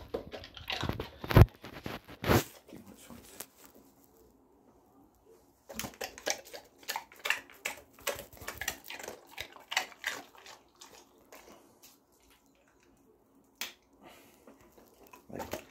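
Bernese mountain dog snapping its jaws and chewing: a run of sharp clicks and crunches, with two loud snaps in the first couple of seconds and a dense stretch of crunching from about six to ten seconds in.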